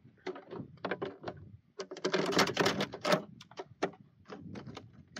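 Aluminium screen of a highbanker's hopper being slid back into its frame: a run of metal clicks and clacks, thickest in a scraping clatter about two to three seconds in.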